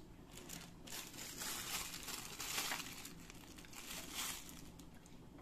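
Faint crinkling and rustling of light wrapping material being handled, in several short bursts.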